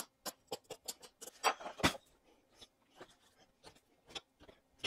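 Narrow chisel paring and scraping the corners of a routed hinge recess in a wooden tabletop: a run of short, irregular scrapes and ticks, with a longer scrape about one and a half seconds in.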